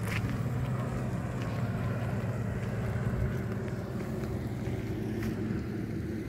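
Steady low engine drone, with a couple of faint clicks, one just after the start and one about five seconds in.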